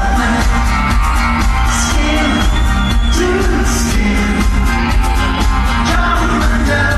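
Live pop song played loud through a concert hall's PA: a singer singing into a microphone over a steady, bass-heavy beat.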